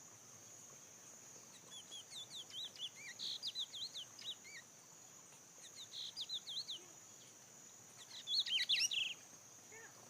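A small songbird singing three bursts of rapid, sweeping whistled notes, the last and loudest near the end.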